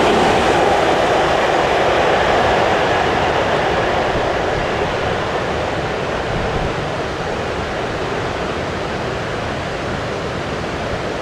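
Rumble of a Class 37-hauled test train receding and slowly fading, giving way to a steady rushing noise.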